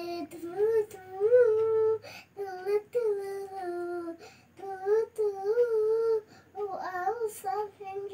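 A young girl singing unaccompanied: a string of long held notes that bend up and down, with short breaks between them and no clear words.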